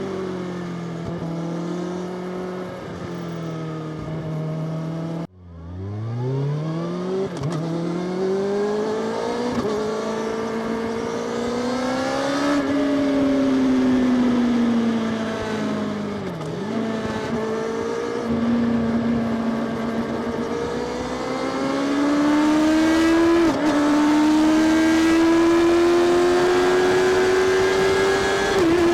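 Kawasaki Ninja ZX-6R inline-four engine and exhaust under way on the road. The note breaks off sharply about five seconds in, then climbs from low revs. After that it rises and falls through the gears, with a small drop in pitch at a shift near the end.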